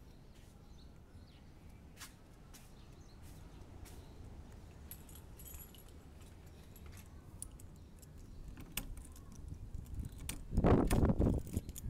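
A ring of keys jangling as a key is put into a doorknob lock and turned to unlock a wooden door. Faint scattered clicks come first, then a louder clatter of keys and lock near the end.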